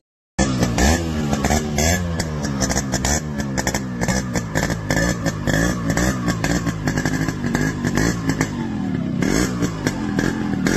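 Yamaha RX100's two-stroke single-cylinder engine being revved over and over, its pitch rising and falling with each throttle blip, with many sharp crackles throughout. The engine comes in suddenly about half a second in.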